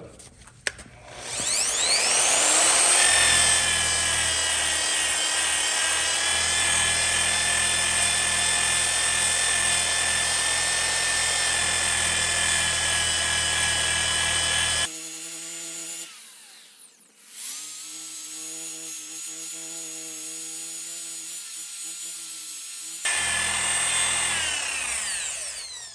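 Electric grinder fitted with a 100-grit hook-and-loop sanding disc, spinning up about a second in and running at a steady high whine while sanding an axe head, then winding down near the end. Partway through the sound shifts abruptly to a lower, steadier tone for several seconds, with a brief dip, before returning to the higher whine.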